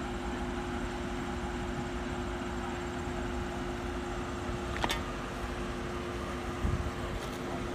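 Steady mechanical hum with a constant low tone, and one sharp click about five seconds in.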